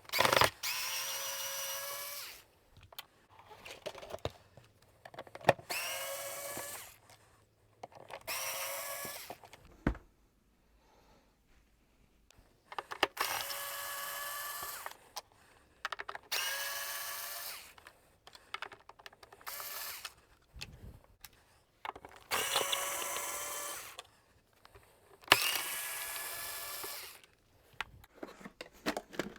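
Power drill-driver running in about eight short bursts of one to two seconds each, its motor whine rising as it spins up each time: screws being driven out one after another while the vacuum cleaner is taken apart.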